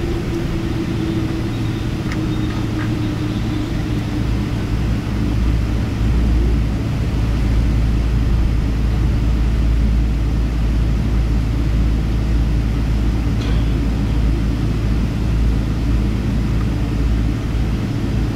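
Cabin noise of a Boeing 777-200ER taxiing, heard from inside the cabin: its Rolls-Royce Trent engines at low thrust give a steady hum and rumble, with a mid-pitched engine tone sinking slightly at first. The deep rumble grows louder about six seconds in.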